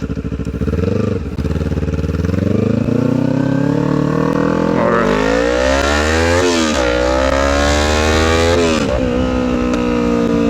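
Straight-piped Kawasaki Ninja 300 parallel-twin engine, with no muffler or catalytic converter, revving up loudly. Its pitch climbs for several seconds, falls back sharply twice, then holds steady.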